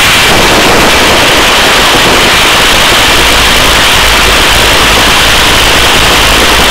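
Hovering search-and-rescue helicopter, its rotor and engine noise a loud, steady hiss-like rush picked up by the crew intercom microphone, with a low rumble growing stronger about three seconds in.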